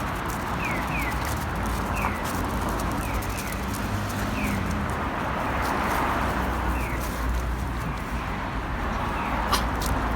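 A small bird chirping: short, quickly falling notes repeated every second or so, over a steady low background rumble, with a few sharp clicks near the end.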